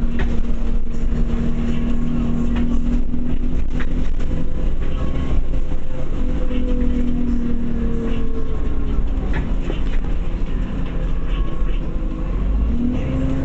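Bus running, heard from inside the passenger saloon: a steady low engine rumble with a humming drivetrain whine that rises and falls in pitch as the bus changes speed, and scattered small rattles from the interior fittings.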